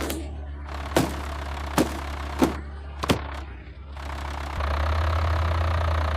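A vehicle engine running with a steady low hum, broken by four sharp knocks or clanks in the first three seconds. The engine then grows louder about four and a half seconds in, as if revving up or pulling away.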